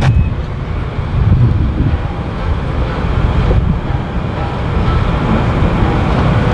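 Steady low rumble of outdoor background noise, with a short click right at the start.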